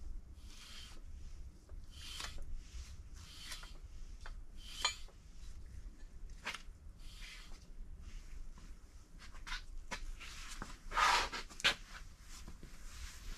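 Gloved hands handling and turning a crankshaft freshly seated in a BMW N55 engine block's lubed main bearings: an irregular string of soft rubs and scrapes, with one louder scrape near the end.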